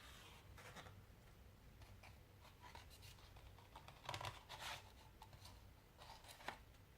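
Faint rustling and scraping of a book-and-CD package being handled, in a few short bursts, the loudest about four seconds in.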